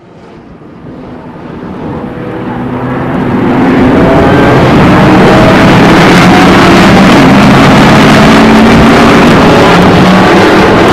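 Supercharged V8 engine of a Ford SVT Lightning pickup running hard at speed. It fades in over the first few seconds, then holds loud and steady.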